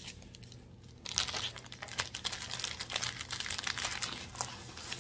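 Rolled diamond-painting canvas and its plastic cover film crinkling and rustling as they are handled, starting about a second in.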